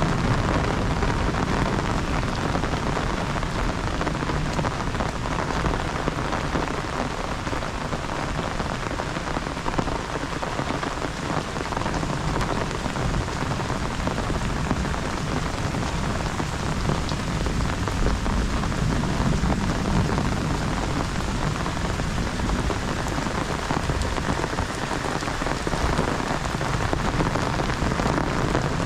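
Heavy rain falling steadily, an even hiss of drops with no let-up.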